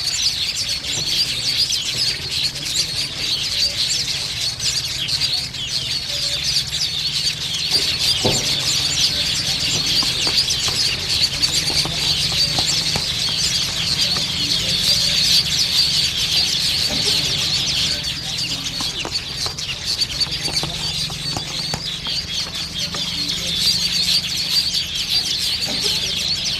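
A colony of weaver birds chattering: a dense, unbroken mass of many short, high, buzzy calls overlapping, with a low steady hum underneath.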